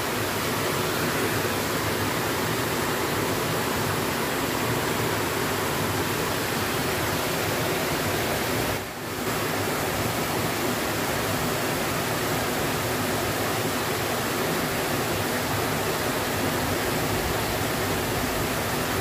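Steady rush of water pouring over a small river weir and running fast over a shallow rocky bed. It drops briefly about halfway through.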